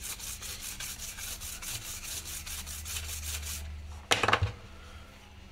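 Small brush scrubbing crusty residue off the solder joints of a circuit board, fast even strokes about five or six a second, stopping a little before four seconds in. A short, loud whoosh follows about half a second later.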